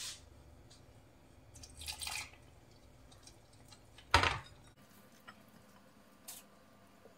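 A hand mixing flour and water into dough in a glass bowl: a few short, soft rubbing and squeezing sounds, with a louder, sharper bump about four seconds in.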